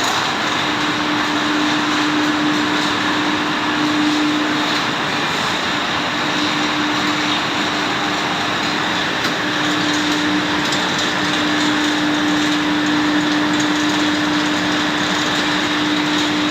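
Biesse Rover C9.50 CNC machining centre running, a steady whirring machine noise with a steady humming tone held through it.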